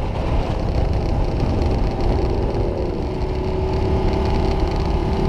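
Ducati Diavel's V-twin engine running under way, with wind rumble on the bike-mounted microphone. The engine note slides down a little about halfway through, then holds steady.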